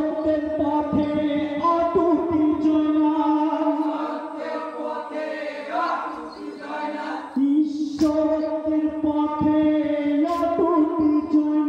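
A marsiya, a mourning lament, chanted by a group of voices in long held notes, with low rhythmic thumps under it in places.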